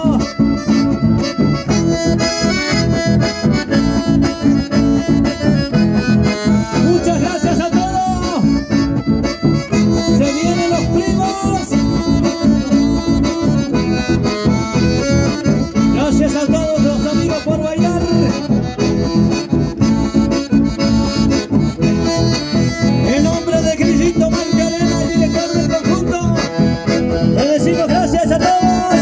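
Live chamamé: two button accordions play the melody over strummed acoustic guitars, with a steady beat.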